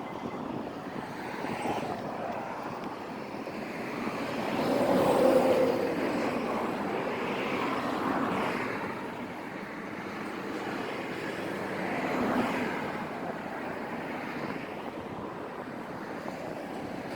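Harbor ambience: a low engine rumble with wind noise, swelling and fading several times, loudest about five seconds in.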